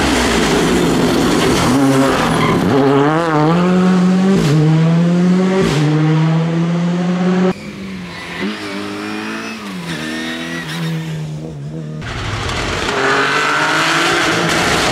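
Rally car engines revving hard and shifting through gears as cars drive a tarmac stage: a Ford Fiesta rally car close by, then a more distant car, then a Peugeot 208 rally car. The engine note climbs and drops with each gear change. It cuts abruptly to a quieter, more distant car about halfway through, and back to a loud, close one near the end.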